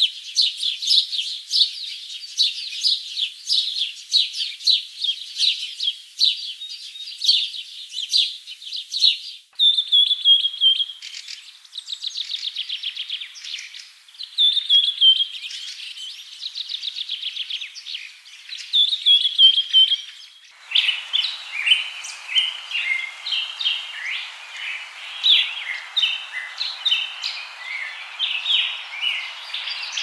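Several songbirds singing and chirping: quick high chirps, fast trills and a repeated falling whistled note. About twenty seconds in, the recording switches to a different chorus of birds chirping over a steady background hiss.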